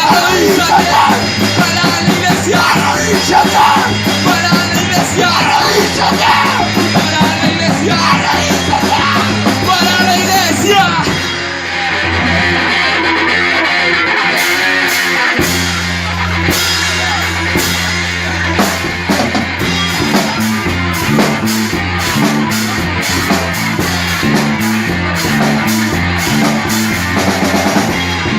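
A punk rock band playing loud with a drum kit, with shouted vocals in the first part. About 11 seconds in the music changes to a held section, and from about 15 seconds a steady driving drum and bass pattern takes over.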